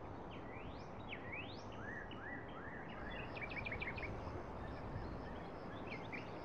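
Birds chirping over a steady background hiss: several rising whistled notes early, a quick run of short chirps in the middle, and a few more calls near the end.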